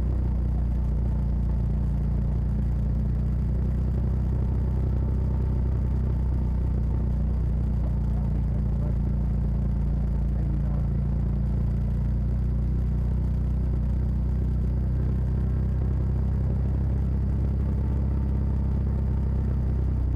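Side-by-side UTV's engine and drivetrain running steadily at cruising speed, with tyre noise on pavement: an even low rumble, heard from inside the cab.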